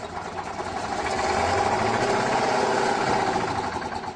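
Large diesel engine of a giant four-wheel-drive tractor revving up under heavy throttle, held at high revs through twin exhaust stacks, then easing off near the end.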